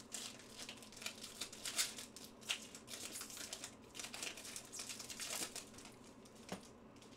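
Foil wrapper of a 2021 Panini Prizm Draft Picks trading-card pack crinkling and tearing as it is opened by hand, in quick irregular crackles that thin out near the end.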